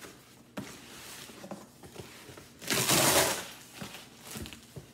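Corrugated cardboard box being broken down by hand: scattered knocks and rustles, with a loud rip of cardboard about a second long in the middle.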